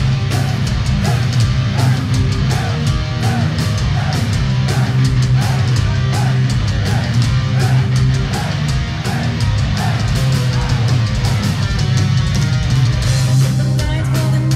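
Heavy metal band playing live, an instrumental passage of electric guitars, bass and drums over a steady low note, with a short melodic figure repeating about twice a second.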